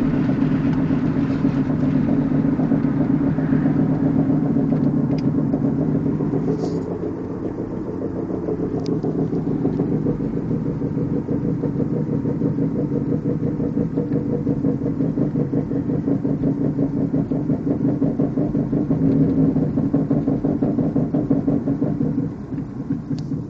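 Toyota Supra MkIV twin-turbo 2JZ-GTE inline-six running steadily with a fast, even pulsing, the strange noise that the owner is trying to show; the cause is not identified. The level dips briefly about seven seconds in and drops again near the end.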